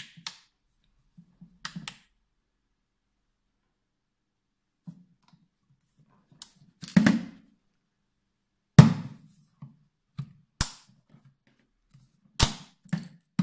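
Scattered sharp clicks and knocks of a magnetic LED work light being handled and set against a metal surface. There are about nine in all, some with a dull thud, and the loudest comes about nine seconds in.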